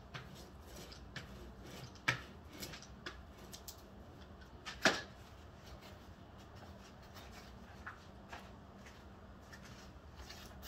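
Light handling noises from a pastry roller and a foam board being worked on a plastic-covered work table: faint clicks and rubbing, with two sharper knocks about two and five seconds in. A steady low hum runs underneath.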